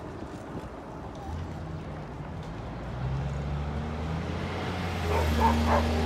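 A motor vehicle's engine running steadily with a low drone that grows a little louder. From about five seconds in, a small dog yaps rapidly, several yips a second, and these are the loudest sound.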